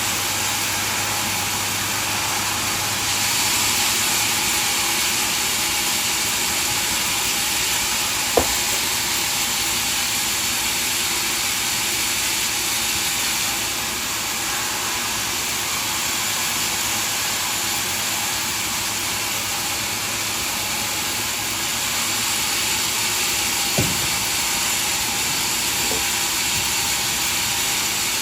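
Sawmill machinery running steadily with a loud, even hiss, with a sharp knock about eight seconds in and another near the end.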